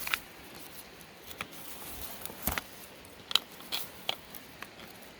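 Small stones clicking and scraping against each other in about half a dozen irregular sharp clicks, the loudest about two and a half and three and a half seconds in.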